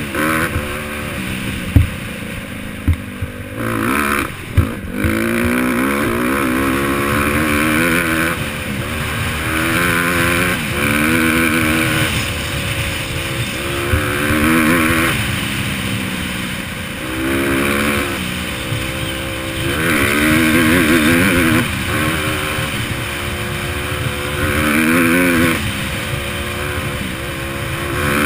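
Honda CRF150R's four-stroke single-cylinder engine revving up and dropping back again and again as the dirt bike accelerates and shifts through the gears, heard close up from a camera mounted on the bike. A few sharp knocks in the first five seconds.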